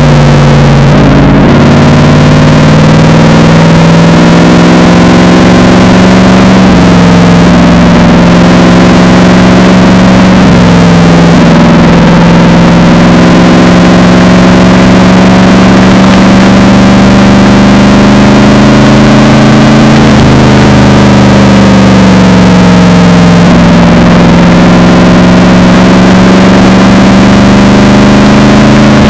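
Mercedes-Benz SLR McLaren's supercharged 5.4-litre V8 running loud through a Devil Sports aftermarket exhaust. It holds a steady, deep engine note whose pitch rises and falls gently several times, with short dips in pitch about a second in, around eight and eleven seconds, and again near twenty seconds.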